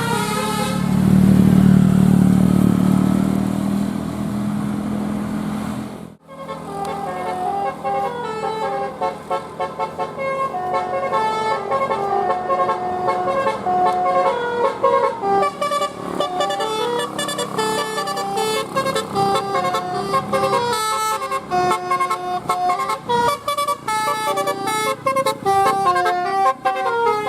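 Indonesian bus telolet horn playing a fast tune, its trumpets sounding quick stepped notes one after another. For the first six seconds a bus engine rumbles loudly under the horn, and the sound drops out briefly before the tune starts.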